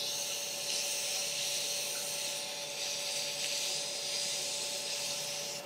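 Wet 1200-grit wet/dry sandpaper hissing steadily against an acrylic/resin pen blank spinning on a lathe at about 2000 RPM, over a faint steady hum from the running lathe. The blank is kept wet and cool so the plastic does not melt.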